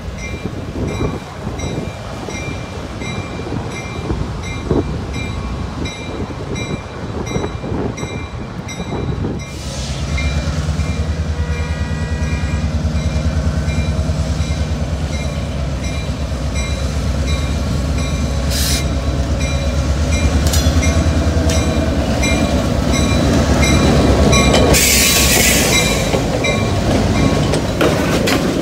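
Railroad crossing bells ringing at a steady beat as a freight train approaches. Then a Norfolk Southern diesel locomotive passes close, its engine running with a steady low drone. Near the end comes a brief, loud hiss of air.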